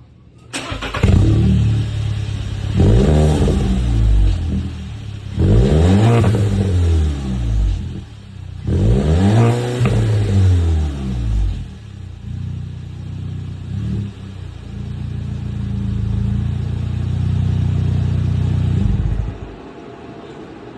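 A 2021 Volkswagen Tiguan's engine starting through an exhaust fitted with a B2B Fab Venturi Tiggypipe, revved three times, each rev rising and falling in pitch, then idling before being switched off near the end. The exhaust note is really not that loud.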